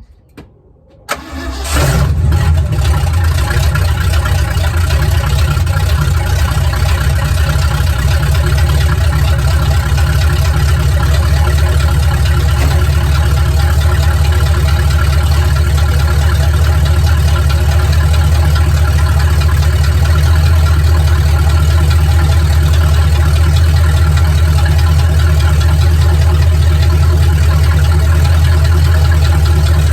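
Truck engine cranking briefly and catching about two seconds in, then running at a steady idle.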